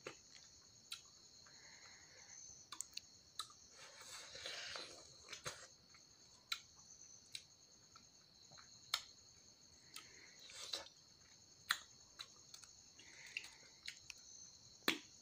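A person chewing food close to the microphone, with sharp mouth clicks and lip smacks scattered through. Behind it runs a steady, high insect chirr.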